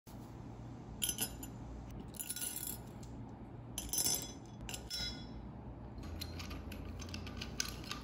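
Small seashells being set into a clear glass shell-shaped dish, clinking against the glass and against each other. The clinks come in scattered handfuls at first and in a quicker run near the end.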